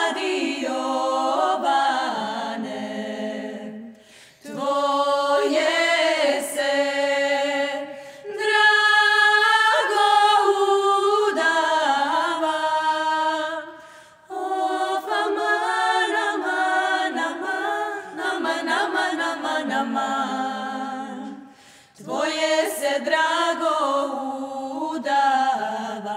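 Women's vocal ensemble singing a cappella in harmony, with no instruments, in phrases separated by brief pauses.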